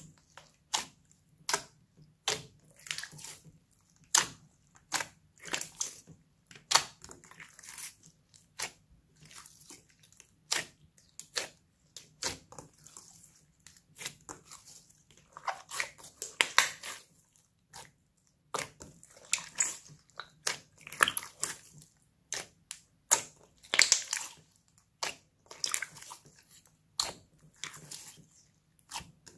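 Glossy slime being squeezed, stretched and folded by hand: irregular wet clicks and pops about one or two a second, with a few longer squelches as it is pulled apart.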